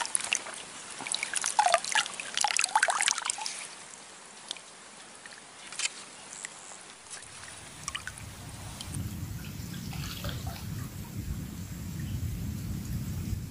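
Water splashing and dripping around a wading angler, a busy cluster of splashes and drips in the first few seconds, then scattered single drips. A steady low rumble comes in about halfway through.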